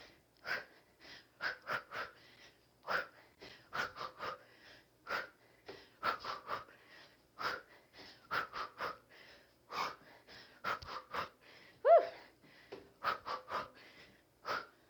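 A woman breathing hard in sharp, quick exhalations, one on each punch and kick of a fast kickboxing drill. About three seconds before the end, one louder, short pitched sound stands out.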